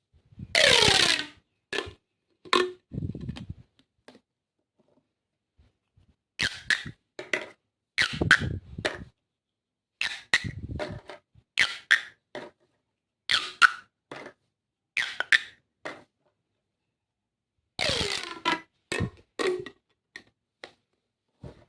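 Plastic tubes making a string of short, hollow, pitched pops and taps with brief silences between them. A few longer sounds fall steeply in pitch: one about half a second in and one near the end.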